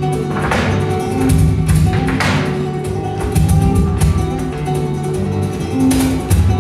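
Flamenco music led by a Spanish flamenco guitar playing, with two swelling hiss-like accents about half a second and two seconds in.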